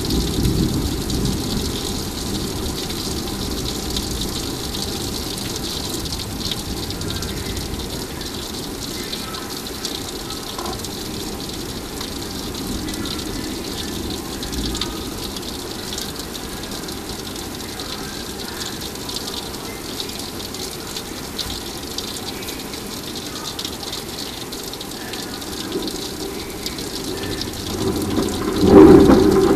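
Steady heavy rain of a thunderstorm, with a thunder rumble dying away over the first seconds. Near the end a loud clap of thunder breaks in.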